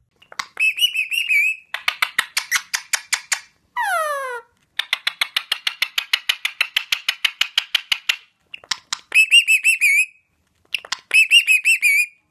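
Indian ringneck parakeet calling loudly. It alternates warbling trills with long runs of quick, sharp repeated chattering notes, and gives one falling whistle about four seconds in.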